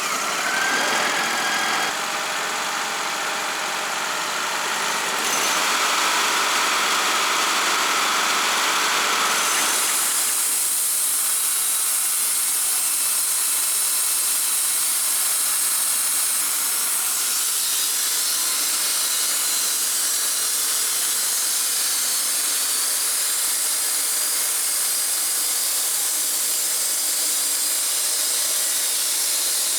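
Wood-Mizer LT35 band sawmill running with a steady, noisy hiss. About ten seconds in the sound changes, the lower part dropping away and a higher hiss taking over.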